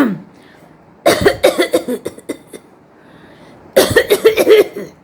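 A woman deliberately coughing, not from illness: two fits of rapid coughs in quick succession, the first starting about a second in and trailing off, the second near the end.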